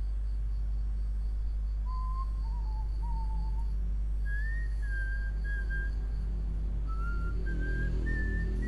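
A person whistling a slow tune of a few pure notes, starting low about two seconds in and stepping higher in pitch toward the end, over a steady low hum.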